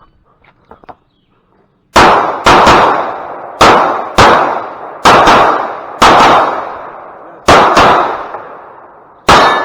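Pistol shots from a carry optics handgun, nine in all, starting about two seconds in and coming in quick pairs and singles: a competition string of fire after the start beep. Each shot rings out with a long echo that fades away.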